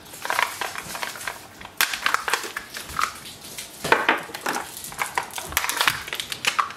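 Stiff clear plastic packaging crackling and clicking irregularly as ink cartridges are handled and worked out of their plastic cases.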